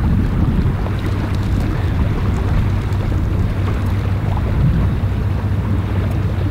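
Steady low drone of boat engines, with wind noise on the microphone over it.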